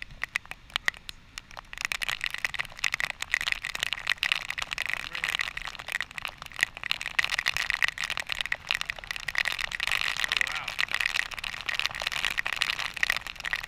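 Heavy spray from the waterfall falling like rain, its droplets ticking on the camera and on plastic rain ponchos over a steady hiss that thickens about two seconds in.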